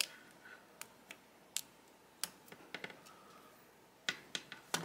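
Scattered small clicks and scrapes as an F-connector is pushed and worked by hand onto the stripped end of a coax cable, with a quick run of clicks near the end.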